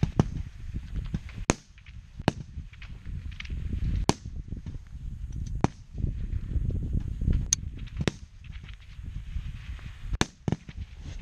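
Rifle shots from a line of competitors firing a slow-fire prone string: sharp cracks at irregular intervals, roughly one every second or so, some louder and nearer than others, over a steady low rumble.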